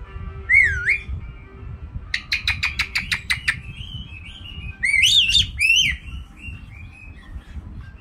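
White-bellied caique calling: a whistle that dips and rises, then a rapid run of about nine clicking chirps. The loudest part is a burst of shrill up-and-down whistles about five seconds in, followed by softer chirps.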